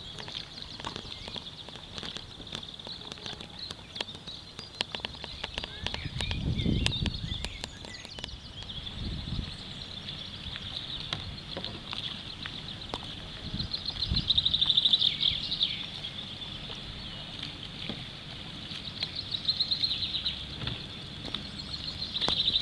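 Riverside ambience: small birds singing in the bank-side trees, with a steady high chirping and louder trills twice in the second half, over scattered light splashes from a kayak paddle. A low rumble comes through about six seconds in.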